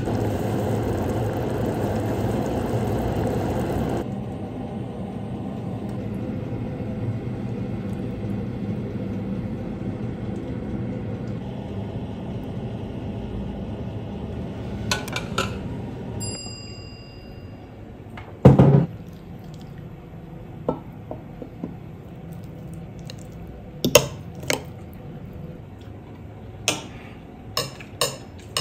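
Thick sauce bubbling in a saucepan, loudest in the first few seconds, then softer. Later come clinks of dishes, one heavy thump about 18 seconds in, and near the end a knife and fork clinking and scraping on a plate as the food is eaten.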